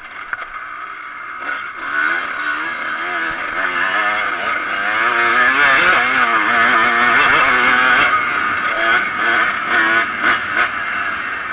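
Kawasaki KX125 two-stroke single-cylinder engine revving up and down under riding, its pitch climbing through the middle. Near the end the throttle is opened and closed in several short bursts.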